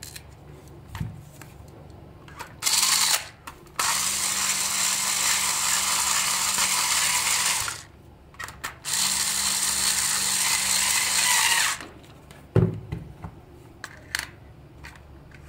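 Cordless electric screwdriver whirring in three runs, a short one and then two of a few seconds each, as it turns screws in a plastic toy car's battery compartment. Small plastic handling clicks and a knock come near the end.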